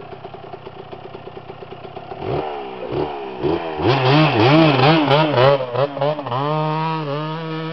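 Motocross bike engine idling, then revving in a quick series of rising-and-falling throttle blips from about two seconds in, before holding steady at higher revs.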